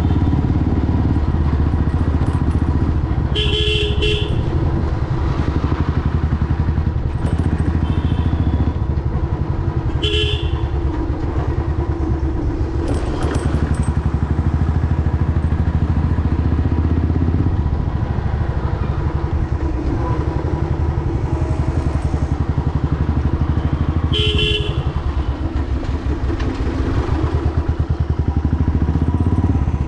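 Royal Enfield Classic 350's single-cylinder engine running steadily under way. A horn beeps briefly three times: about 3 seconds in, about 10 seconds in, and a little after 24 seconds.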